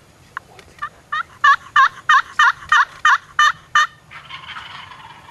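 Wild turkey yelping: a run of about a dozen evenly spaced yelps, roughly three a second, building in loudness, followed by a short raspy sound about a second long.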